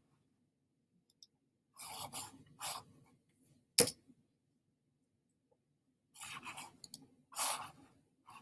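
Scattered rustling and scraping handling noises with one sharp click just under four seconds in, as someone fumbles to go to the next page.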